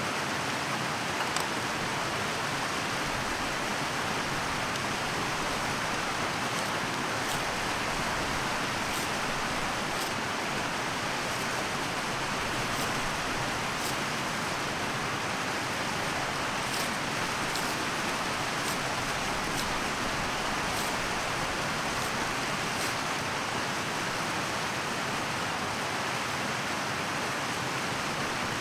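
Steady rushing of a mountain stream, even and unbroken, with a few faint scattered clicks over it.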